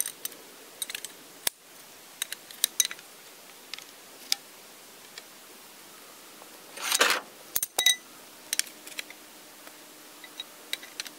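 Aluminum Army-mast sections clinking and knocking as they are slid into and set in a tripod base. The clicks are scattered, with a louder clatter about seven seconds in and a brief metallic ring just after.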